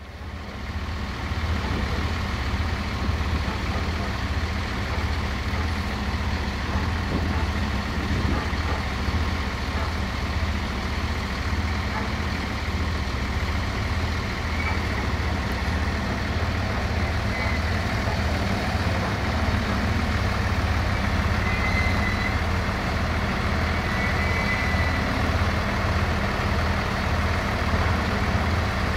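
Siemens Desiro diesel multiple unit running with a steady, low, pulsing throb from its underfloor diesel engines as it moves slowly through the station and stands beside a second unit.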